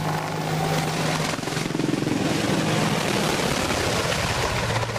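AH-64 Apache attack helicopter flying low and close, a loud rapid rotor chop over the engine hum.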